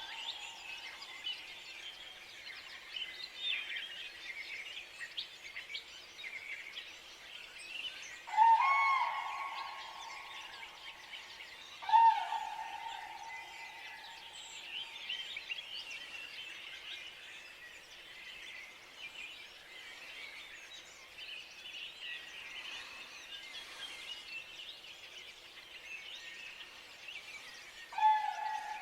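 Common cranes calling: three loud trumpeting calls, each a brief upturn then a held tone, about a third of the way in, a few seconds later and near the end. A chorus of small songbirds chirps throughout.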